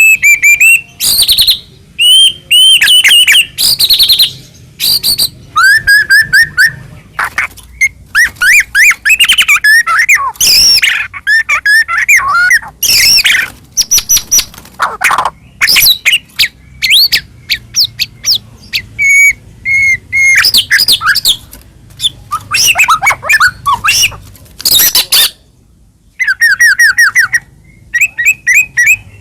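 White-rumped shama (murai batu) singing loudly and continuously in rapid, varied phrases of clear whistles, fast trills and harsh chattering notes, with a brief pause near the end.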